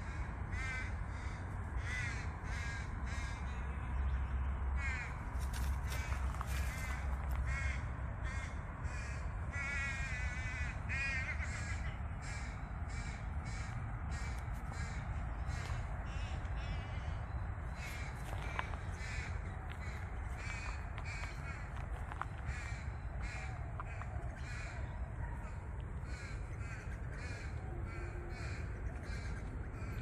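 Birds calling in quick runs of short, harsh calls, several a second, with no letup, over a steady low rumble.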